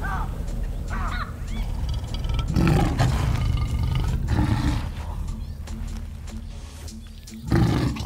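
African wild dogs giving brief high chirping calls, followed by a male lion's deep roaring and growling a couple of seconds in, with another loud deep growl near the end.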